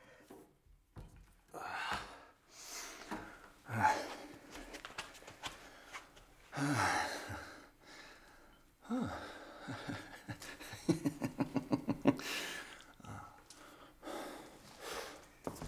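A man's breathy gasps and sighs over a cup of tea, several falling in pitch, with a quick run of short breathy pulses about eleven seconds in.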